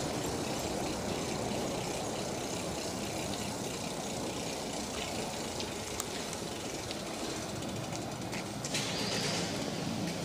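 City bicycle rolling along an asphalt lane: steady tyre and road noise with the rattle of the bike and its wire front basket, a few light clicks, and a louder hiss near the end.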